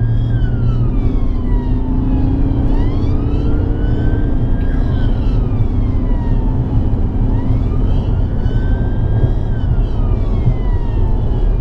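Police car siren on its slow wail, sweeping down and back up about every four and a half seconds, heard from inside the car over a steady low road and engine rumble as it drives at speed on an emergency blue-light run.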